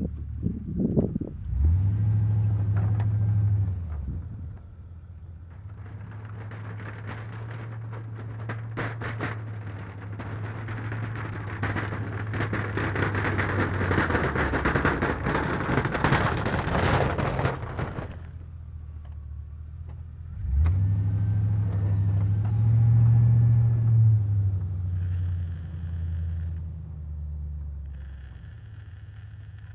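Pickup truck with a stainless V-plow pushing snow. The engine revs up under load twice, near the start and about two-thirds of the way in, and between the revs the blade scrapes and shoves snow with a long noisy rush.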